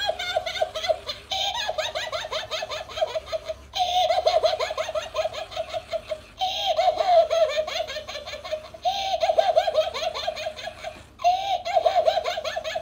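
Talking Chopper plush doll giving a high-pitched recorded laugh, repeated in runs of about two and a half seconds with short breaks between.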